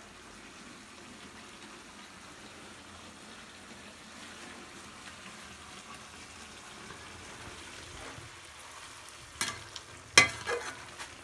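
Chicken curry frying in a pan with a steady, soft sizzle. Near the end a utensil knocks against the pan a few times, one knock much louder than the rest.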